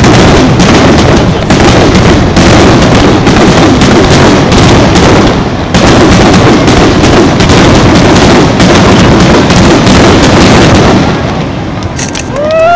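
Fireworks display: a dense, continuous barrage of aerial shell bursts and crackling, very loud, that eases off about eleven seconds in.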